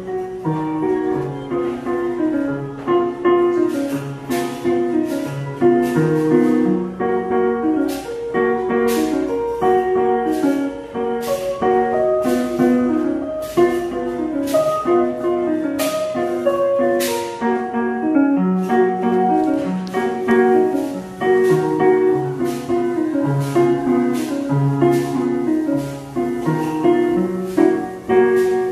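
Upright piano being played: a lively piece with a fast, steady pattern of broken chords in the low register under a melody line, with sharp accented notes every second or so.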